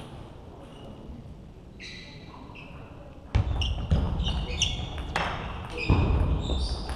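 Table tennis rally: after a quieter start, from about three seconds in a quick series of sharp ball strikes on bats and table comes roughly every half second, with heavy footsteps and high shoe squeaks on the sports-hall floor.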